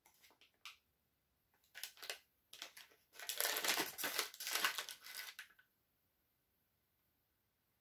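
Plastic wrapper of a dog dental chew being crinkled and torn open. A few short rustles come first, then a dense crinkling starts about three seconds in and lasts some two seconds, the loudest part.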